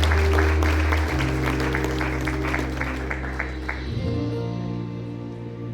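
Congregation applauding over the held closing chords of the song's accompaniment; the clapping dies away about four seconds in while the music sustains a final chord.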